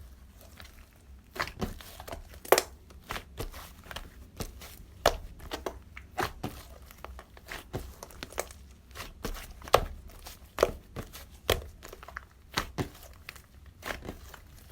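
Irregular sharp crackles and crinkling clicks close to the microphone, about one or two a second, over a faint low hum.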